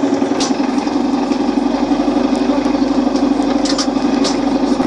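Onboard electrical machinery of a BTZ-5276-04 trolleybus running with a steady, loud buzzing drone, heard inside the passenger cabin while the trolleybus stands still. There are light rattling ticks now and then.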